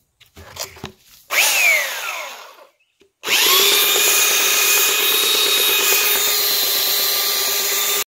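Electric belt sander with a coarse 80-grit belt on a rough-sawn cherry slab. It is switched on briefly about a second in and winds down with a falling pitch. It starts again about three seconds in, spins up and runs steadily with a high whine as it sands.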